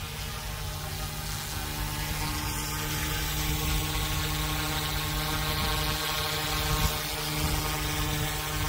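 Flywing FW200 V2 250-size RC helicopter in flight, its main and tail rotors and electric motor giving a steady high whir with a hum underneath. It gets somewhat louder about two seconds in as it comes closer.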